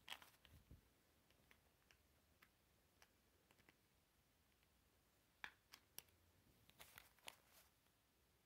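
Near silence broken by scattered faint clicks and taps of a small plastic toy pizza box being handled, thickest about five to seven seconds in.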